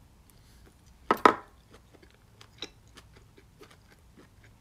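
Metal chopsticks tapping and clicking against each other and a plastic takeout container: a scatter of light clicks, with a louder double clack about a second in.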